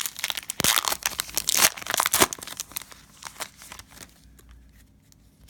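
Cellophane wrapper of a trading-card pack crinkling and crackling as it is handled. The crinkling is dense for about two seconds, thins to scattered crackles, and dies away near the end.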